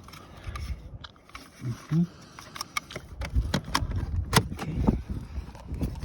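Car door trim panel being slid and pushed back over the door frame: quiet handling at first, then a rapid string of plastic clicks and knocks from about two and a half seconds in.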